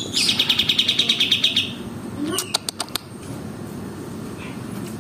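A songbird giving a rapid trill of evenly spaced high notes for just under two seconds, followed by a few short, sharp chips, from a birdsong recording used to tutor caged songbirds.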